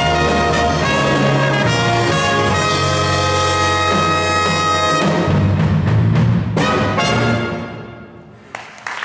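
A youth big band's saxophone and trumpet sections playing the closing bars of a piece. The music stops about three-quarters of the way in and dies away.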